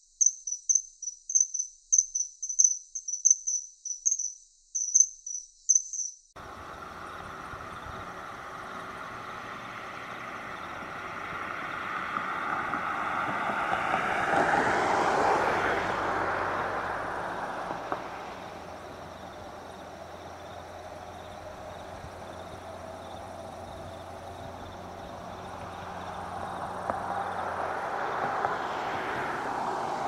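A collared kingfisher gives a run of shrill, high calls, about two a second, that stops suddenly after some six seconds. Outdoor background follows, with a vehicle passing by about halfway through and another coming up near the end.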